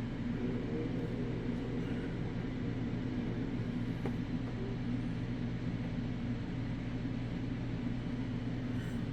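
Steady low machine hum, even in level throughout.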